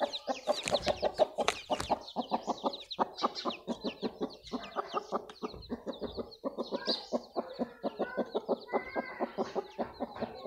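A mother hen clucking to her brood in a quick, steady run of short clucks, with newly hatched chicks peeping over it in thin, high, falling chirps.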